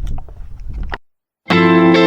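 Low rumble cuts off about a second in, then after a short break background music with electric guitar starts.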